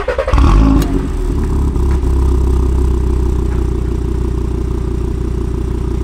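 Audi RS3 8P's turbocharged five-cylinder engine starting up through a non-resonated Milltek 3-inch exhaust with secondary decats. It fires with a short, loud flare in revs, then settles about a second in to a steady, loud idle.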